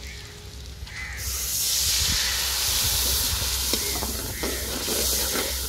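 Water poured into hot oil in a large aluminium wok: from about a second in, a loud, steady hiss and sizzle as it hits the oil and flashes to steam. A few knocks of the metal ladle against the pot come near the middle.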